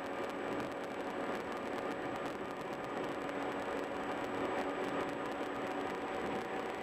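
Steady road noise of a car driving at highway speed: an even tyre and wind hiss with a constant low drone underneath.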